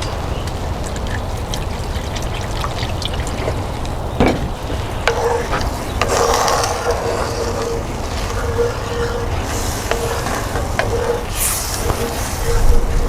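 Beef-broth gravy simmering and sizzling in a pan over a charcoal grill, with a utensil clicking against the pan as it is stirred, under a low steady rumble.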